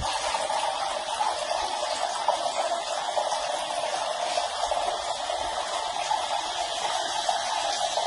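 Water pouring steadily from two small spouts of a cement fountain into a glass fish tank, splashing on the surface of the pool below.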